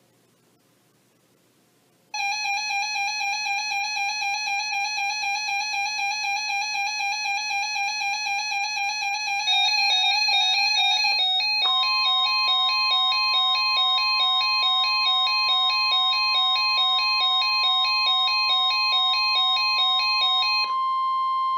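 Weather-radio emergency alert tones: about two seconds in a loud warbling electronic tone with overtones begins. About halfway through a steady high alarm tone, the weather-radio warning tone, starts under a fast alternating beep pattern. The beeps stop near the end and the steady tone cuts off just after.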